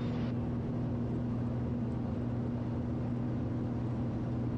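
Steady cabin drone of a Piper Malibu's single piston engine and propeller in flight, an even low hum with no change in pitch.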